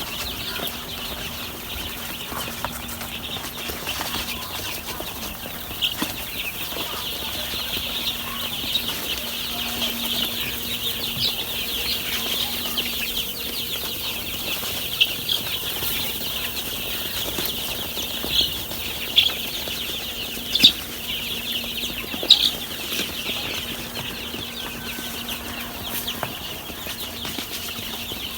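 A brood of week-old chicks peeping continuously, many high cheeps overlapping, with a few louder single peeps in the second half.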